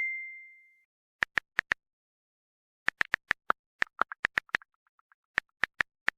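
Facebook Messenger notification sound effect: quick electronic pops in short runs of about four to six, repeated several times. A ding's clear tone dies away in the first second.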